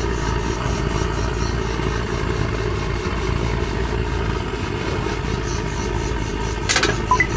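Handheld gas torch running steadily, its flame jet blowing into a pellet stove's burn chamber to light the wood pellets and preheat the stove so it draws. A short sharp clink comes near the end.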